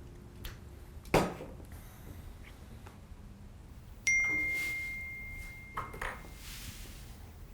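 A single knock about a second in, then a clear metallic ding: one pure ringing tone that starts suddenly and fades over about two seconds, followed by a couple of light clicks.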